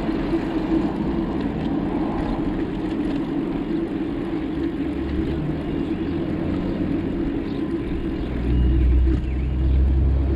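Steady road and traffic noise heard from a moving bicycle, with low wind rumble on the microphone swelling about eight seconds in.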